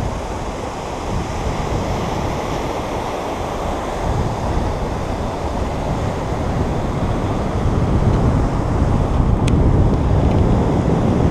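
Surf breaking and washing below the pier, with wind buffeting the microphone; a single short click about nine and a half seconds in.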